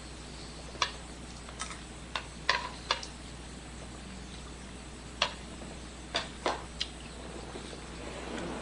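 Steel dip-pen nib scratching on paper in short, quick inking strokes: about nine sharp scratches, bunched in the first three seconds and again around five to seven seconds in, over a steady low hum.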